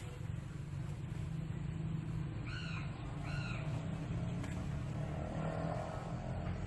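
Two short arched animal calls, under a second apart, about two and a half seconds in, over a steady low hum.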